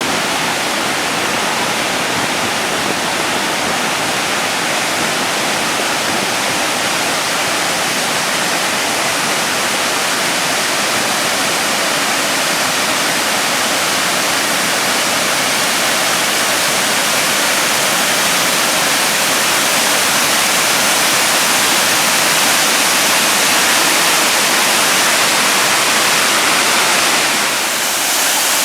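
A large waterfall in full, heavy flow: a loud, steady rush of falling water. It dips briefly just before the end.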